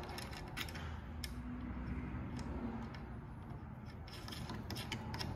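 Scattered light metal clicks and taps as the presser-foot parts of a Yamata FY-335A walking-foot cylinder-bed sewing machine are handled, over a steady low hum.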